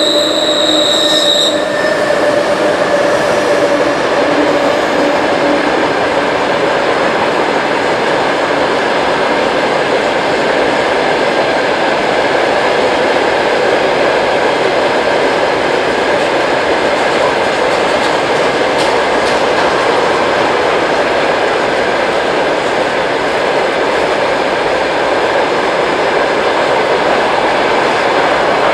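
Freight train of open wagons rolling past behind two Sr2 electric locomotives: a steady, loud rumble and rattle of wheels on rail. A few steady tones from the passing locomotives fade out over the first few seconds.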